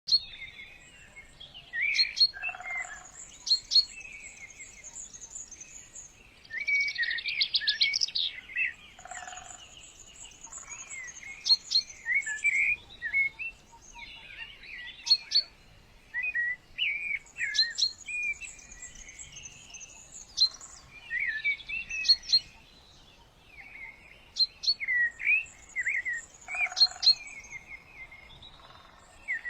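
Songbird chirping and singing in repeated phrases of quick high chirps, sweeping notes and a fast trill, with short pauses between phrases.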